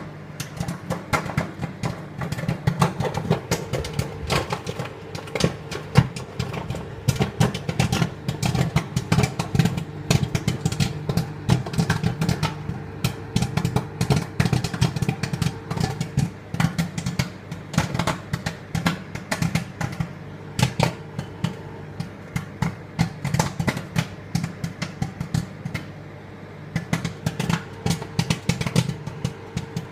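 Popcorn kernels popping in quick, irregular succession, many pops a second, over a steady low hum from the appliance heating them. The popping thins briefly a few seconds before the end, then picks up again.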